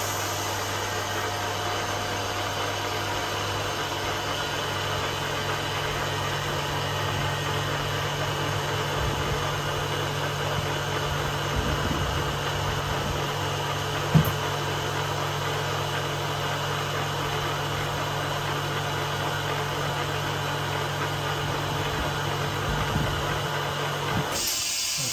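NM byLW Q9+ vacuum laminating machine for phone screens running a laminating cycle: its pump hums steadily, with one sharp click about halfway through. The hum stops shortly before the end.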